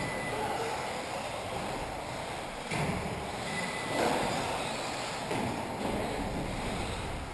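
Radio-controlled touring cars running on a carpet track: a steady hiss of motors and tyres, swelling as cars pass close about three and four seconds in.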